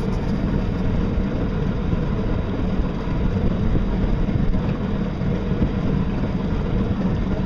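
Steady low rumbling rush of a small battery-powered boat under way on open water, with no clear motor tone.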